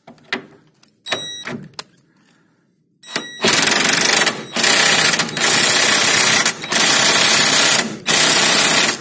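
Ryobi R18IW3 18-volt cordless impact wrench, on its second speed with a 19 mm socket, tightening a nut on a threaded rod through timber. After a few short clicks, it hammers in about five loud runs with brief breaks between them, starting about three and a half seconds in. The hammering is the impact mechanism striking as the nut takes up load.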